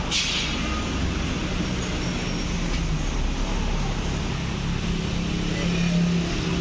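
A short hissing burst from an air ratchet right at the start, then steady workshop background noise with a low hum that swells a little about five seconds in.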